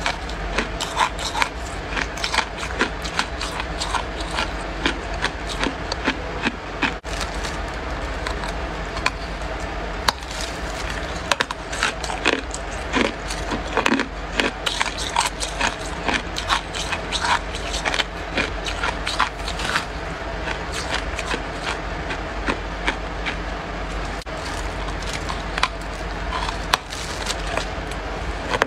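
Freezer frost being chewed close to the microphone: dense, irregular crunching of ice that goes on without a break.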